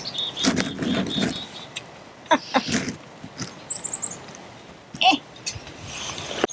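Small birds chirping and calling in short high notes, with scattered sharp clicks and rustling from twigs and the metal twig stove being handled.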